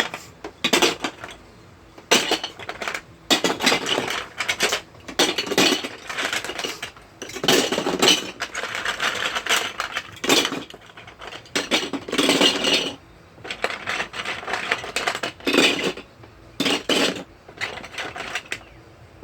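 Plastic Lego Duplo bricks clattering and knocking together as they are handled and shifted about, in irregular bursts with short pauses between.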